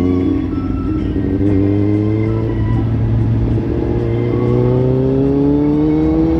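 Kawasaki Z800's inline-four engine running through a Lextek slip-on exhaust, its pitch climbing slowly in long pulls broken by short dips about half a second in, around two and a half seconds in, and just after the end.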